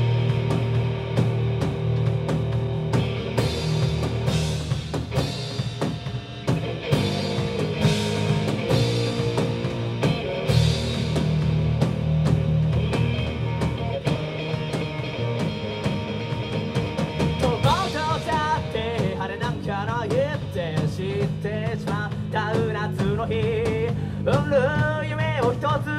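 Amateur rock band playing live: electric guitars, bass and a drum kit, with a male voice starting to sing about two-thirds of the way through.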